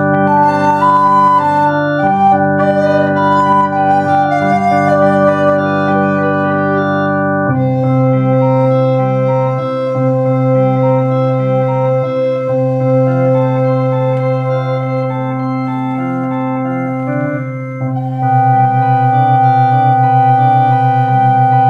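Electronic home organ playing sustained chords with a bass line, a recorder playing the melody above it. The chords change about seven seconds in, and near the end the bass takes on a pulsing vibrato.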